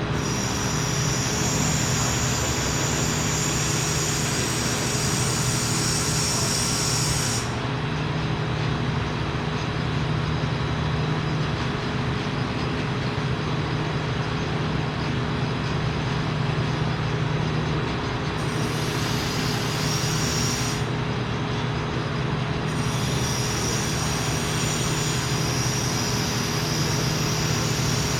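Metalworking machinery running steadily with a low hum, and a high-pitched hiss that cuts in and out three times.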